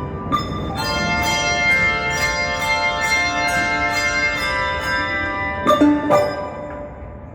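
A handbell choir playing, the bells struck with mallets in a quick, even run of about three strokes a second, their chords ringing on. Two loud strikes a little before the end ring out and fade away.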